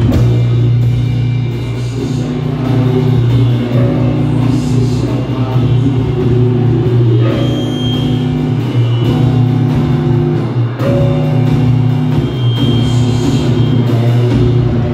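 Live band playing loud rock music: electric guitar and drum kit over a steady low drone, with vocals run through an electronics and effects-pedal rig.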